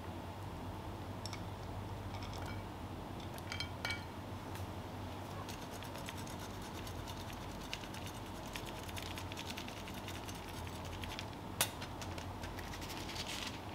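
Hard cheese being grated over a plate of risotto: a long run of fine, scratchy rasping that starts about five seconds in, with a few soft clicks just before it and one sharp click near the end, over a faint steady hum.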